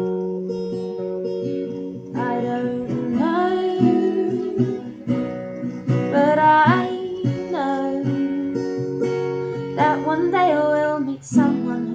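Acoustic guitar strummed in steady chords, with a woman's singing voice entering about two seconds in and gliding through a melody over the guitar.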